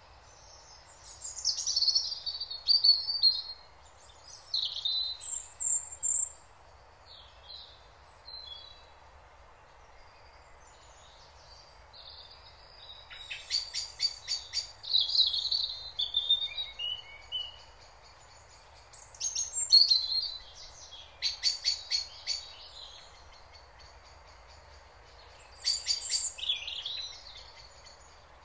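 Songbirds singing in short, separate phrases of high chirps and quick trills, with quiet gaps of a few seconds between them, over a faint steady background hiss.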